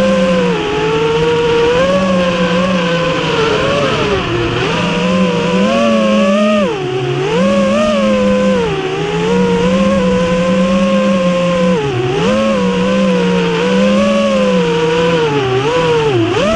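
FPV quadcopter's motors and propellers whining, the pitch rising and dipping again and again as the throttle is worked, over a steady rush of air.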